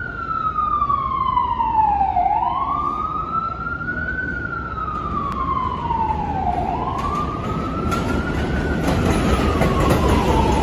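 An emergency vehicle's siren wails slowly, its pitch falling and rising about every four seconds. From about seven seconds in, the rumble of a Bombardier R142 subway train pulling in along the elevated track swells beneath it.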